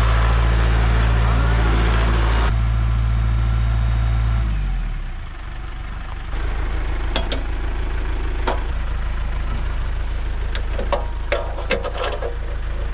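An engine running steadily at speed, throttled down about five seconds in, then idling. A few sharp knocks and clanks come over the idle in the second half.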